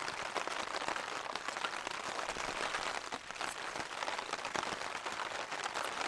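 Wind-driven rain pelting a Hilleberg tent's flysheet, heard from inside the tent: a steady dense patter with many small ticks.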